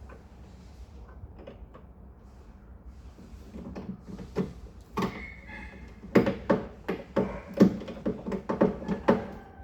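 Irregular metallic clicks and knocks from parts and a tool being worked inside a car door during teardown. They are sparse at first and come thick and fast in the second half.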